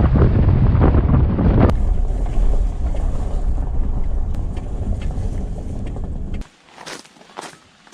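Strong wind buffeting the microphone as a low rumble, which cuts off abruptly about six and a half seconds in; soft footsteps follow near the end.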